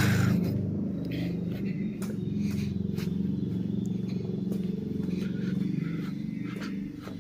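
Footsteps on a brick-paved ramp, a light tick every half second to a second, over a steady low rumble.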